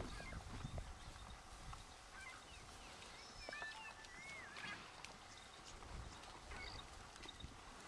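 Faint outdoor ambience: a low irregular rumble, with a few faint, wavering bird whistles in the middle.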